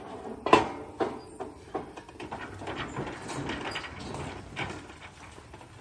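Steel pipes levering a metal boat lift frame: a few sharp metal knocks, the loudest about half a second in, then a stretch of scraping and rustling as the frame shifts over the ground.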